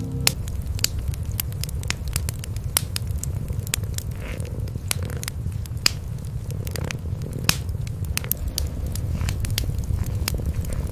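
Wood fire crackling with frequent sharp pops and snaps over a steady low rumble of cats purring.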